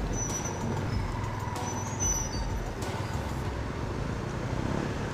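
Steady street traffic noise with a low engine rumble from vehicles around a stopped motorcycle, with a few faint high squeals.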